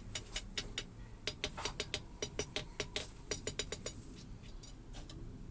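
Hammer tapping an iron bar on an anvil in quick, light blows, about four to five a second, squaring up the bar's end. The blows thin out to a few last taps about four seconds in.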